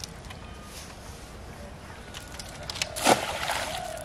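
A single loud splash in pond water about three seconds in, dying away over the next half second.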